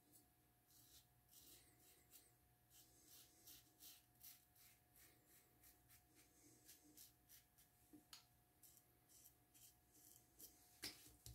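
Faint, quick scraping strokes of an Assured double-edge safety razor cutting stubble on a touch-up pass, many in a row, with a single louder click near the end.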